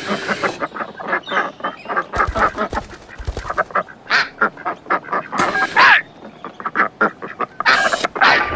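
A rapid run of short, squawky, quack-like calls, with a few sliding in pitch.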